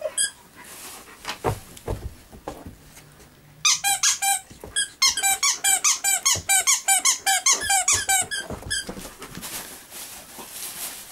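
The squeaker from a torn-apart dog toy being chewed by a dog, squeaking rapidly over and over, about three or four squeaks a second, for some five seconds in the middle. Softer knocks and rustling come before the squeaking.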